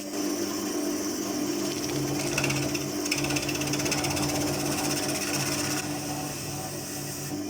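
Wood lathe running with a steady motor hum. From about two seconds in until near six seconds, a fast, even rattle is added as a tool works the spinning maple.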